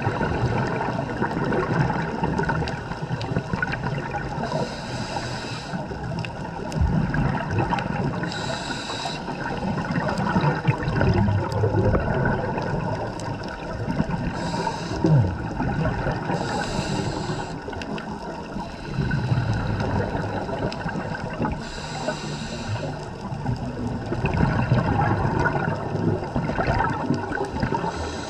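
Scuba diver breathing through a regulator underwater: about five short hissing inhalations a few seconds apart, each followed by a long rush of exhaled bubbles.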